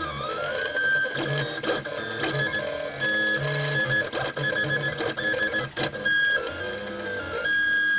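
Stepper motors of a homemade 3D printer whining as it prints: several steady tones that jump to new pitches every fraction of a second as the axes move, with a few short clicks.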